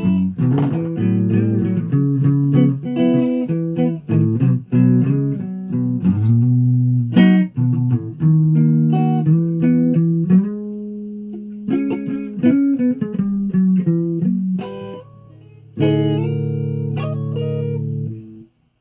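Guitar played: a run of plucked single notes and chords with several sliding bends, then a chord struck and held that cuts off suddenly near the end.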